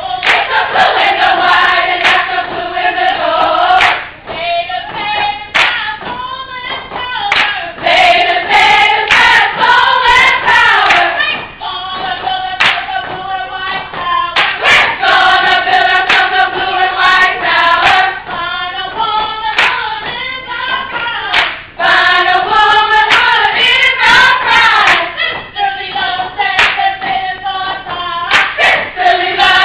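A group of voices singing together in unison, with sharp handclaps through the song.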